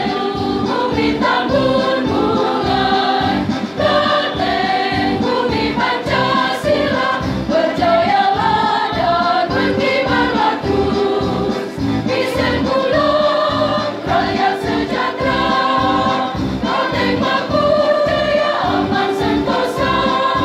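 Women's choir singing a march song in unison over accompaniment with a steady beat.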